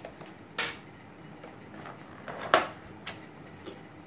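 Small cardboard box being opened by hand, its top seal worked open with a pen: two short scraping, tearing sounds, about half a second in and a louder one a little past halfway, with faint handling ticks between.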